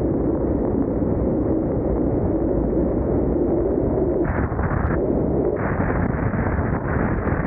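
Wind buffeting the microphone of a camera mounted outside a vehicle driving fast on a wet highway, with tyre hiss and road spray. The hiss comes and goes in louder patches in the second half.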